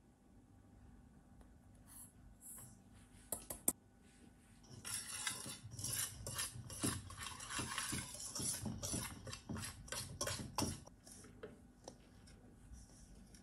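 Wire whisk stirring dry almond flour, powdered sugar and cocoa powder in a stainless steel bowl: a dense run of scraping and clinking of the wires against the metal for about six seconds, from about five seconds in. Before it, a few sharp metal knocks about three and a half seconds in, as the small steel bowl is tipped against the large one.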